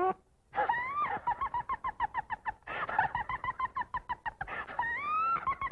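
Cartoon sound effect for the dog, twice over: a high rising wail that breaks into a long run of rapid, stuttering, cackle-like pulses.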